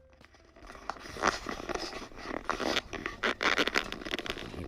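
Irregular scraping and rustling with a few light clicks, from computer parts being handled.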